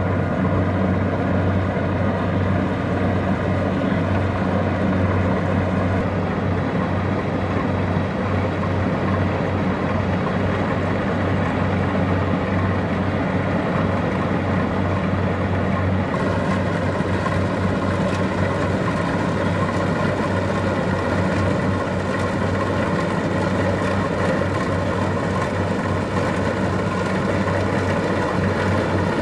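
Kubota DC-70 Plus rice combine harvester running steadily at working speed, a constant diesel engine drone with a strong low hum.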